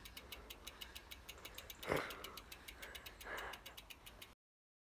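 Mountain bike's rear freehub ticking steadily, about seven clicks a second, as the bike is wheeled along. Two short breaths are heard over it, the louder one about two seconds in. The sound cuts off abruptly near the end.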